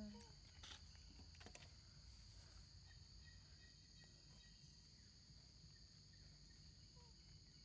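Faint, steady, high-pitched drone of insects in the forest, with a couple of soft clicks about a second in.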